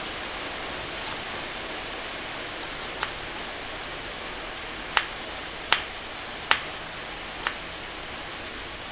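Kitchen knife chopping a red onion on a wooden cutting board: five sharp knocks of the blade hitting the board, unevenly spaced, bunched in the second half, over a steady hiss.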